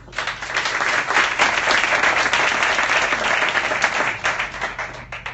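Audience applauding: many hands clapping, starting abruptly and dying down near the end.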